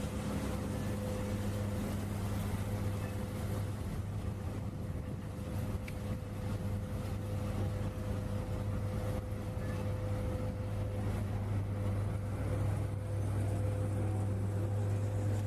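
Steady low machine hum of factory equipment, a constant drone with a few held tones over a rushing noise, growing slightly louder near the end.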